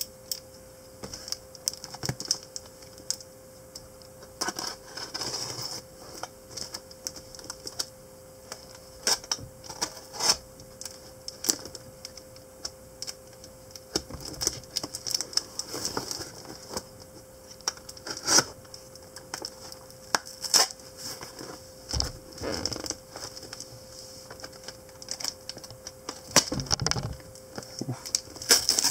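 Utility knife slitting packing tape on a cardboard box, with irregular scratching, clicks and taps as the box is handled and turned.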